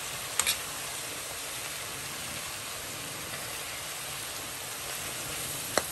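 Chopped onion, scallion and sweet peppers sizzling steadily in olive oil in a frying pan as they soften, with a metal spoon clicking against the pan about half a second in and again near the end.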